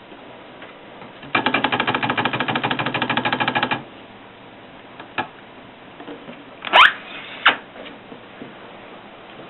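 1939 Erika 5 portable typewriter: a fast, even run of key strikes, about ten a second for some two and a half seconds. A single click follows, then a quick rising sliding sound with a sharp knock and one more knock near the end.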